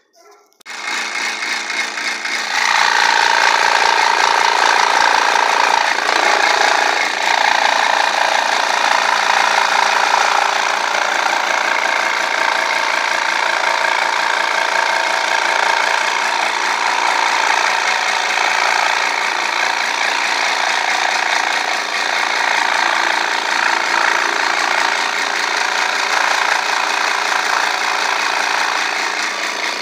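Benchtop scroll saw running, its reciprocating blade cutting through a sheet of plywood as it is fed along a curved outline. The sound starts about half a second in, grows louder at about two and a half seconds once the blade is in the cut, and then stays steady.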